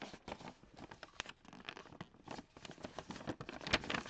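A paper envelope being torn open and handled, its paper rustling and crinkling in quick, irregular crackles.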